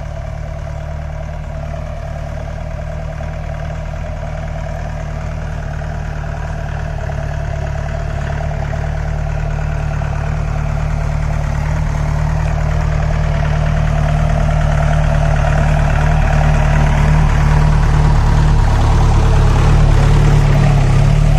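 Four-wheel-drive jeep engine running steadily at low revs, growing gradually louder.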